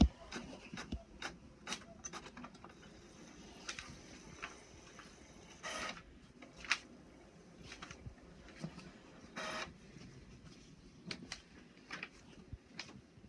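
HP OfficeJet all-in-one inkjet printer running, fairly quiet: scattered mechanical clicks, with two short whirring passes about six and nine and a half seconds in.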